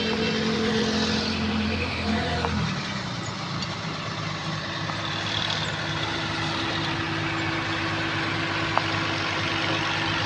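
Heavy diesel road-construction machinery running. One engine's steady tone drops away about two and a half seconds in, while another engine carries on steadily, with a single sharp click near the end.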